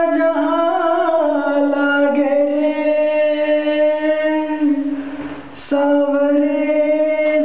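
A man singing a Hindi film song unaccompanied, holding long drawn-out notes that waver slightly. About five seconds in he breaks off briefly for a breath, then comes back on a new held note.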